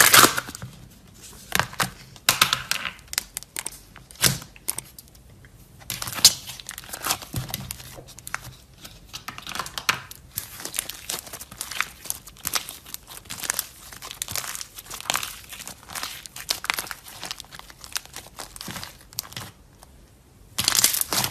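Slime being squeezed and stretched by hand, giving dense crackling and crinkling pops, with a couple of short lulls.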